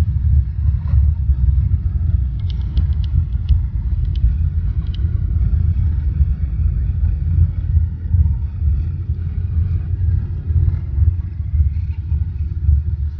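Deep, steady rumble inside the cabin of a Boeing 747-8 on its landing rollout: tyres, landing gear and engines as the airliner decelerates along the runway. A few faint, short clicks come through between about two and five seconds in.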